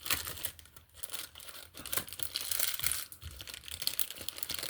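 Packaging crinkling and rustling as it is handled, a dense run of irregular crackles.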